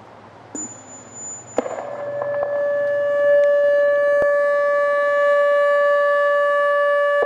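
ATI HPSS32 electronic speaker siren starting its test: a click about a second and a half in, then a steady, unwavering alert tone that grows louder over the next couple of seconds and holds.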